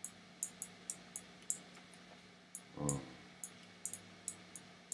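Computer mouse clicking lightly and irregularly, more than a dozen small sharp clicks, while brushing strands with a drag tool. About three seconds in, a man makes a brief wordless murmur with a falling pitch.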